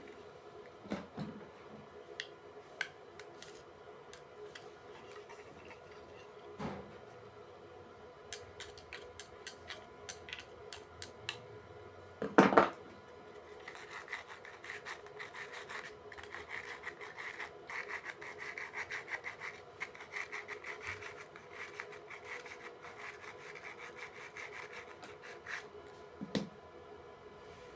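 Sandpaper scrubbing the metal core faces of an opened contactor to smooth the magnetic contact surfaces, in rapid back-and-forth strokes for about ten seconds in the middle. Before the scrubbing there are scattered light clicks of handling and one sharp knock.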